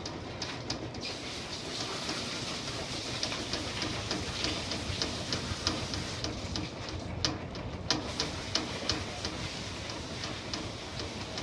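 Repurposed top-loading washing machine on its spin cycle, whirling a plastic fish basket of washed salad greens to spin them dry. A steady whir with a rapid, regular ticking, about three ticks a second.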